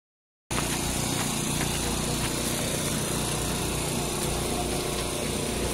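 Crowd ambience with chatter from a dense crowd, over a steady low mechanical drone. It starts abruptly about half a second in.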